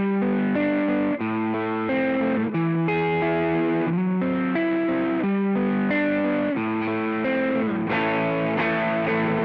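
Electric guitar played through a Joyo Vintage Overdrive, a Tube Screamer-style overdrive pedal, giving a warm, mildly distorted tone. It plays sustained notes that change about once a second, with a few slides between pitches.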